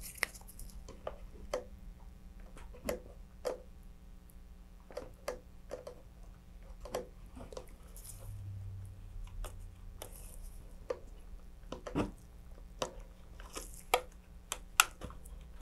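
Metal dental pick scraping and tapping against the inside of a thin plastic rocket fairing while pressing epoxy clay into a gap, heard as irregular small clicks and soft squishy scrapes.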